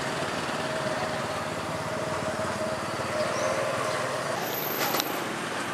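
Steady outdoor road-traffic noise, with a thin steady hum that stops about four and a half seconds in.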